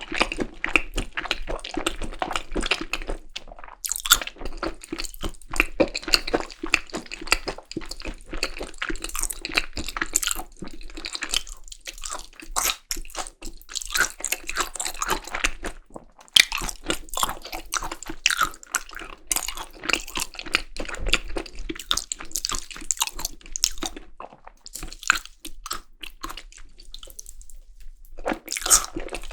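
Close-miked chewing of Korean seasoned raw beef tartare (yukhoe): a dense run of small mouth clicks, broken by a few brief pauses.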